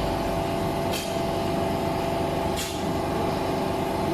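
Steady machine hum from the running laser welding system, several steady tones layered together, with two short clicks about one and two and a half seconds in.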